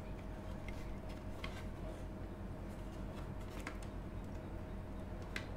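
A few faint clicks and taps of a Linksys E900 router's plastic casing being handled as its top cover is fitted back onto the base, over a steady low hum.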